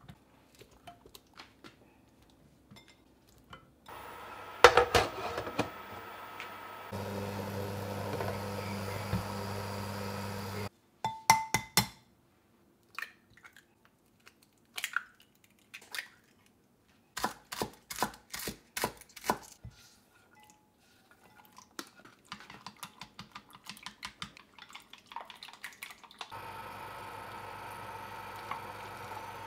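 Kitchen sounds: scattered knocks and clicks, a stretch of steady hum, then, in the last third, a run of quick light clinks as wooden chopsticks beat eggs in a glass bowl. A steady hiss with a low hum follows near the end.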